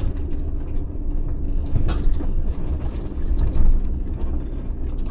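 Inside the cab of a Ram ProMaster camper van crawling over a rough, rocky dirt road: a steady low rumble of engine and tyres, with scattered knocks and rattles and one sharper knock about two seconds in.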